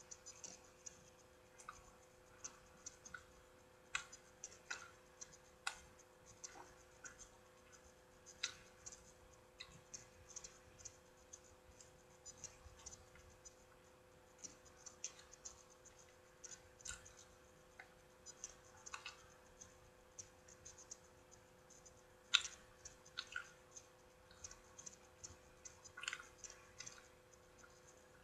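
Quiet close-up eating sounds from a soft frosted cinnamon roll: irregular small clicks and smacks of chewing and of the dough being pulled apart, a few a second, with the loudest one about twenty-two seconds in. A faint steady hum runs underneath.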